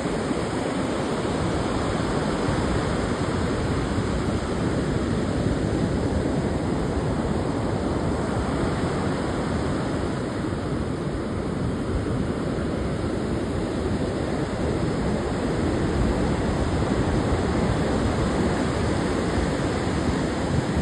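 Heavy surf of a rough sea breaking and washing up a sandy beach: a steady rushing wash of water.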